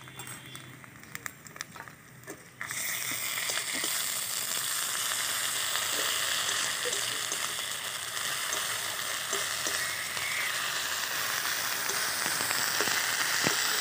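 Chopped onions frying in mustard oil in a steel kadai, a steady sizzle that jumps up suddenly about two and a half seconds in, with occasional light clicks of the spatula stirring.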